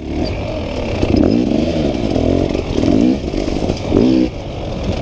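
Dirt bike engine revving up and dropping back over and over as it is ridden hard along a trail, the pitch rising and falling about once a second, with a few light clattering knocks.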